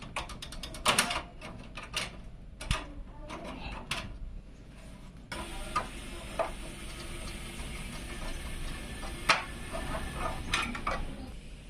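A series of sharp clicks and light ratcheting knocks from computer parts being handled and fastened during a PC build. The clicks come thick in the first half and more sparsely later, and a steady hiss comes in about halfway through.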